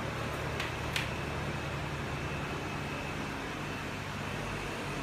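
Steady mechanical hum with a thin, steady high whine over it, and two light clicks close together about a second in.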